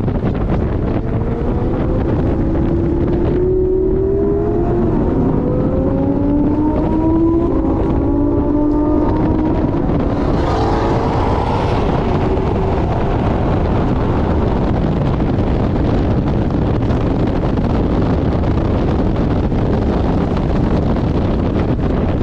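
Porsche 718 Boxster GTS at speed on track under heavy wind noise on the microphone. The engine note rises through the gears with a shift a few seconds in, then a brief louder rush near the middle, then mostly steady wind roar.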